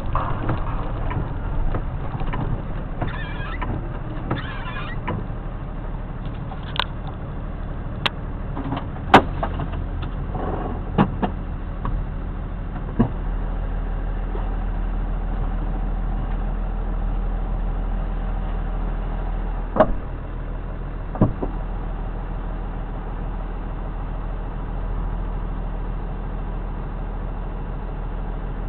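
A steady low vehicle engine hum, with about seven sharp clicks and knocks scattered through the middle of it.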